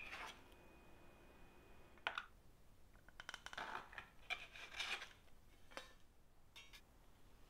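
Stainless-steel bench scraper cutting through soft dough and knocking and scraping on a stone countertop: a sharp tap at the start, another about two seconds in, then a run of scraping strokes and a few light clicks near the end.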